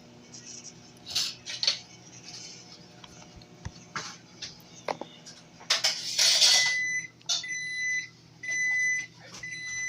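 Microwave oven running with a low steady hum, then a series of long electronic beeps repeating about once a second from about seven seconds in, the signal that the timed cook has finished. Just before the beeps there is a brief loud clatter.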